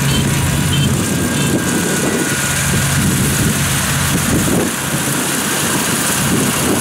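Rice combine harvester running steadily as it cuts and threshes ripe rice: an even engine hum under a steady high hiss.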